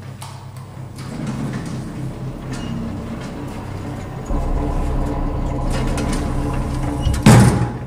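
Low rumble over a steady hum, swelling and stepping up louder about four seconds in, then a loud sudden hit near the end that rings briefly.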